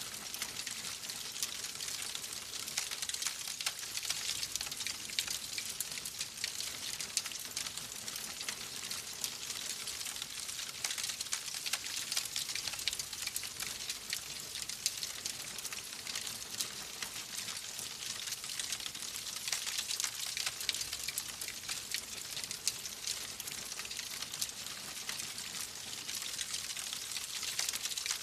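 Wood fire in a fireplace crackling steadily: a dense run of small pops over a soft hiss.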